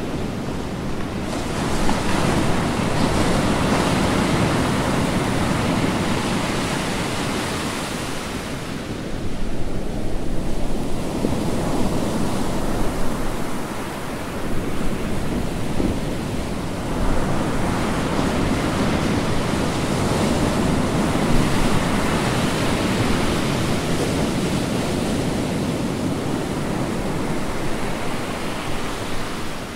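Ocean surf: waves breaking and washing in as a continuous rush. The rush surges louder every several seconds as each wave comes in.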